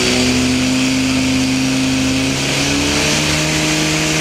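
Portable fire pump engine running hard, pushing water through the hose lines. Its pitch rises a little about two-thirds of the way through.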